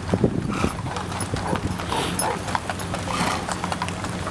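Several horses walking on a paved road, their hooves clip-clopping in an irregular, overlapping patter.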